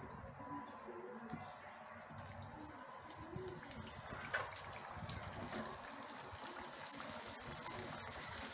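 Hot oil sizzling and bubbling in a pot as fine strands of laccha semai deep-fry, with small crackles throughout; the sizzle grows busier after about two seconds as the strands go into the oil.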